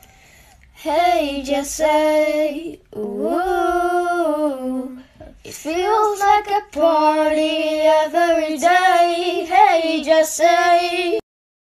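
A single voice singing in several short phrases, with long held notes and slides in pitch, and brief breaks between the phrases.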